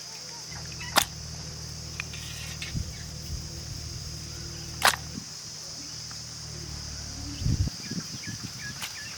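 Steady high-pitched insect drone, broken by two sharp knocks about four seconds apart, with a low hum through the middle and a few faint bird chirps near the end.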